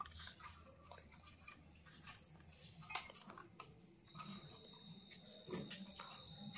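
Faint handling of thin aluminium sheet being bent straight by hand: a few light clicks and scrapes, the clearest about three seconds in.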